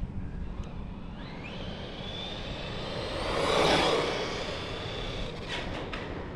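Losi Lasernut RC buggy's brushless electric motor whining as the car accelerates, its pitch rising, then holding high as the buggy passes by at speed with tyre noise. It is loudest a little past halfway, then fades.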